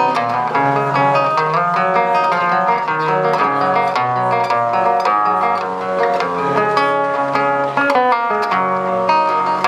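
Nylon-string classical guitar played fingerstyle, a steady instrumental passage of plucked notes and chords.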